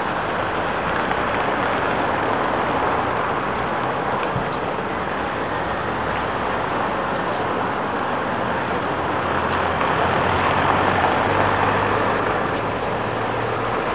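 Street traffic noise: a steady rush of road vehicles that swells as one passes about ten seconds in, with a low, steady engine hum underneath in the second half.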